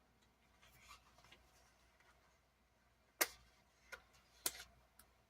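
Quiet handling of a paper sticker sheet and planner pages: a few short, sharp light clicks and taps, the loudest about three seconds in, with faint soft rustling between them.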